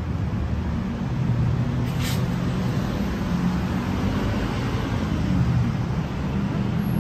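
Steady road-traffic rumble of passing motor vehicles, with a brief higher hiss about two seconds in.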